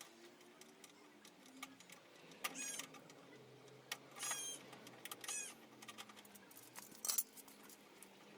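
Hand tools clicking and clinking against car body parts while the front slam panel is being unbolted, with three short runs of rapid ticking and a sharp knock about seven seconds in.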